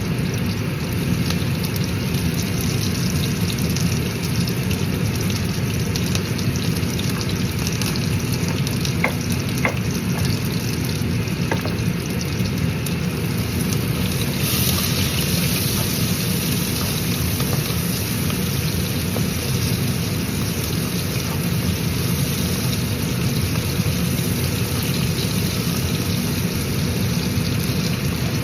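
Spare ribs frying in a pan: a steady sizzle whose hiss gets brighter about halfway through, with a few light clicks a little before that.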